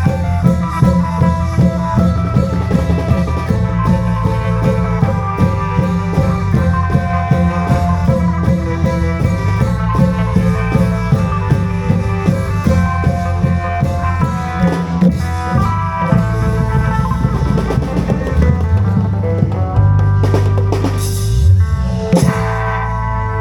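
An Isan klong yao (long drum) ensemble playing: dense, steady drumming under a sustained, many-voiced melody in khaen style. The drumming thins out near the end.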